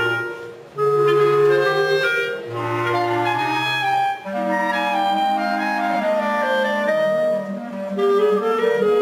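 A clarinet ensemble plays held notes in harmony, with a bass clarinet sounding the low notes under the higher clarinets. The music breaks off briefly about a second in and again about four seconds in, between phrases.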